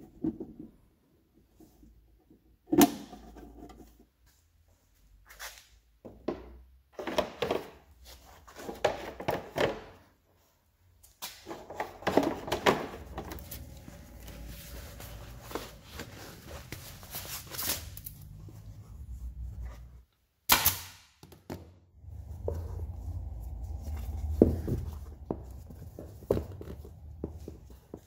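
A string of knocks, thunks and clicks from hands-on work, with a low hum in places.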